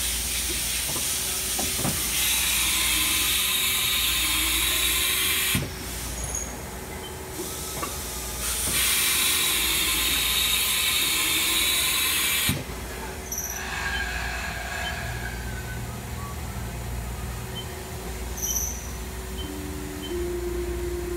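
2004 Haas TM-1 CNC vertical mill at work cutting metal: two long stretches of loud hiss, each of several seconds, with quieter machine running between them. Near the end, a tone steps up in pitch.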